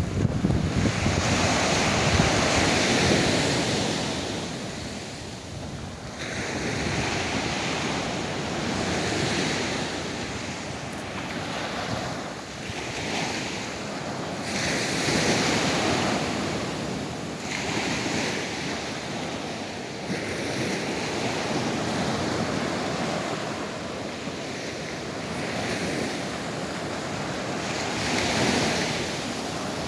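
Small sea waves breaking and washing up a sandy shore, the surf swelling and fading every few seconds, with wind rumbling on the microphone near the start.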